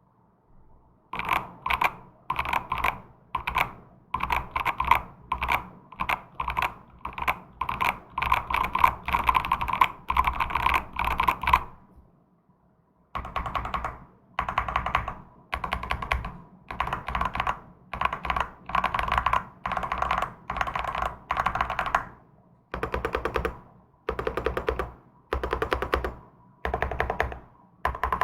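Typing on a zenzo Black Coral custom mechanical keyboard fitted with Outemu Dawn (破曉) switches, its case stacked from 5 mm plates and filled with IXPE and Poron foam. Runs of fast keystrokes in bursts of a second or two, with a pause of about a second near the middle.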